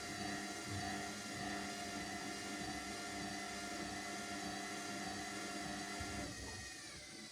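Washing machine spinning at speed, a steady motor whine of several tones over a hum. About six seconds in the motor cuts out and the whine falls in pitch as the drum winds down.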